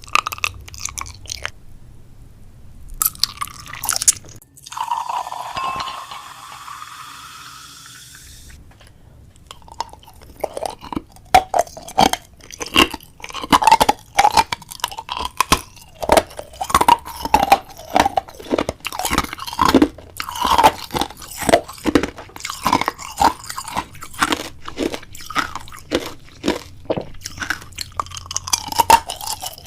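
A long run of crisp crunching sounds, several a second. It is preceded near the start by a few seconds of hissy rustling.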